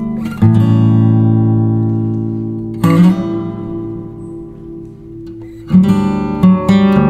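Background music: acoustic guitar strumming chords that ring out and fade, a new strum every two to three seconds, then quicker strums near the end.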